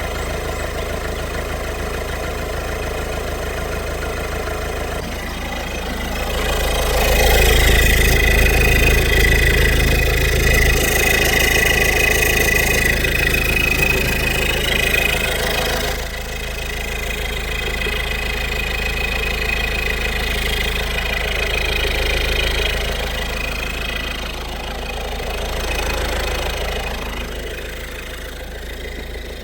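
Peugeot 1.6 HDi diesel engine idling steadily while it warms up and its cooling system bleeds. It grows louder about six seconds in and drops back suddenly about sixteen seconds in.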